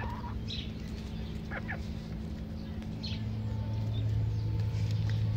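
Backyard chickens feeding, giving a few short soft calls and clucks, over a steady low hum.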